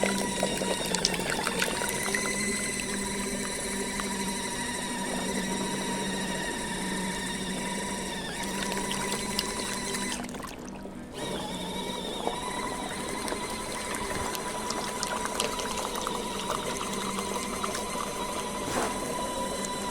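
Portable mini washing machine running its rinse cycle: the motor whirs steadily with a hum and a thin whine while water churns in the tub. About ten seconds in it stops for a moment, then starts up again.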